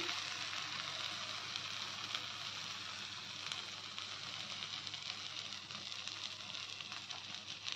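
Spice-paste-coated okra pieces frying in mustard oil on a flat iron tawa over a low flame: a soft, steady sizzle.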